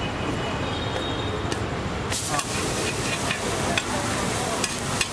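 Buttered sandwich sizzling on a hot flat griddle, the sizzle growing louder about two seconds in as it is flipped onto its raw side. Several sharp clicks of a metal spatula against the griddle follow, over street traffic and voices.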